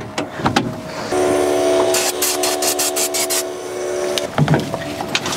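A 1972 Ford F100's engine being cranked by the starter without catching: a steady starter whine from about a second in for some three seconds, with a quick run of clicks in the middle. The owner thinks no fuel is reaching the carburetor.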